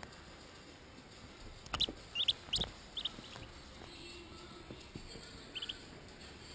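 A duckling peeping: a quick run of short, high peeps about two seconds in, then a couple more near the end.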